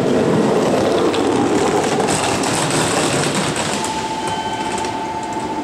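JR Central 313 series electric train pulling into a station platform: loud rumble of wheels and running gear that eases slightly. A steady high whine sets in about two-thirds of the way through as the train slows.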